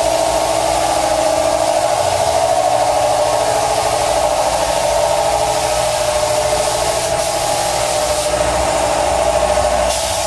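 Steady, loud drone of a running motor in the paint shop, unchanging throughout, with a low hum beneath it.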